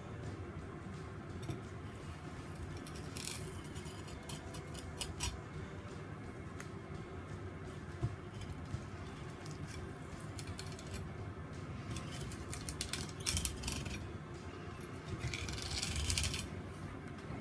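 Kitchen knife cutting into a small tuna along its back, the blade scraping and ticking against the bones and cutting board in short scratchy bursts, the longest near the end, over a low steady hum.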